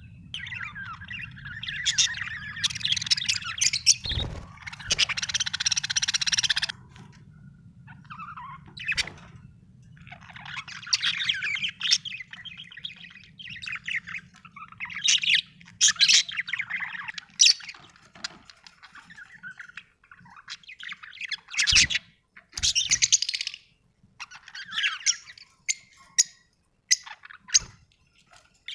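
Budgerigars chirping and warbling in bouts of a second or two, with short pauses between them. A low steady hum sits under the first two-thirds and then stops, and there are a few brief low thumps.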